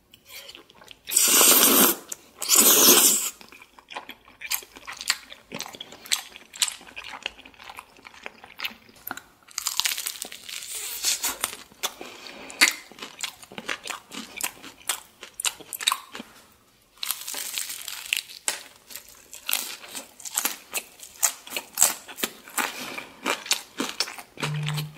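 Close-miked eating: two loud slurps of flat glass noodles in the first few seconds, then the crisp crunching and chewing of fried chicken coating, bite after bite.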